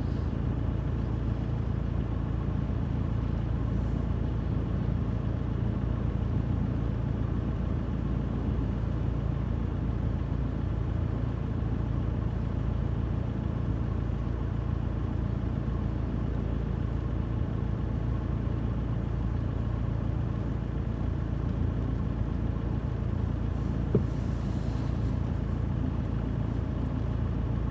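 Steady low rumble of gale-force wind buffeting a parked car, heard from inside the cabin, with heavy surf breaking beyond.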